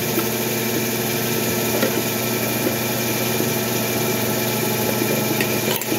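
A steady mechanical hum, like a motor running, with a few light clinks of a spoon and fork against a ceramic plate, the clearest near the end.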